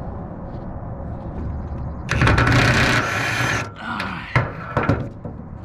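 Impact wrench hammering for about a second and a half, starting about two seconds in, breaking loose a bolt holding a brush cutter blade. A steady low hum runs under it, and a few sharp knocks follow.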